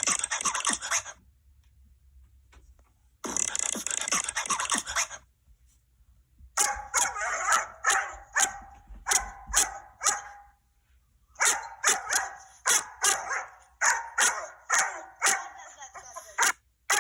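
Dog barking in two long runs of sharp, rapid barks, about two to three a second. Before the barking come two brief bursts of hissing noise.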